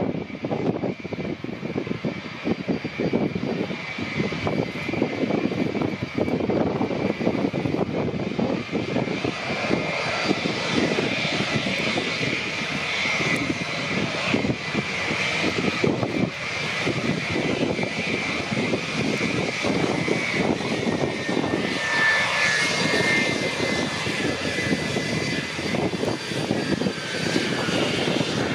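Handley Page Victor K2's four Rolls-Royce Conway jet engines running as the aircraft taxis past on the runway: a steady jet rumble with a high whine that drops in pitch over the last several seconds.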